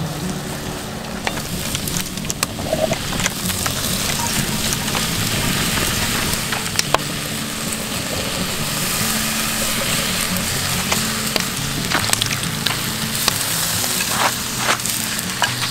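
Ground beef sizzling in a cast-iron Dutch oven, with a wooden spoon stirring and scraping the pot in short clicks, under background music.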